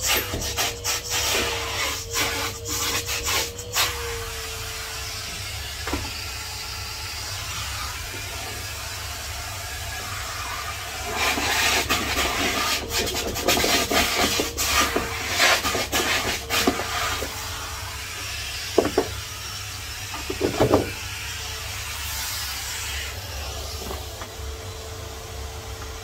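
Henry HVR200 vacuum cleaner running steadily, overlaid by bursts of rubbing and scraping as items are handled, at the start and again in the middle, and two short knocks later on.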